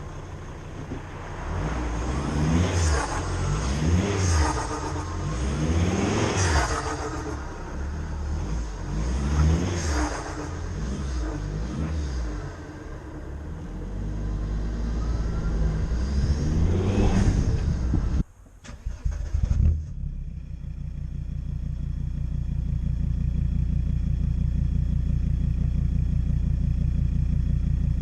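Volvo 2.4 D5 five-cylinder turbodiesel revved again and again through a custom stainless steel exhaust, the pitch rising and falling every couple of seconds, with turbo flutter as the throttle closes. After a short break about two-thirds of the way in, the engine runs steadily.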